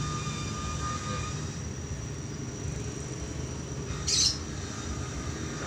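Steady low background hum and room noise, with one short high chirp about four seconds in.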